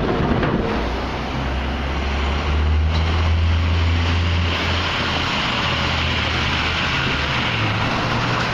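City street traffic noise: a steady rush with a low rumble from a passing vehicle that swells and is strongest about three to four seconds in.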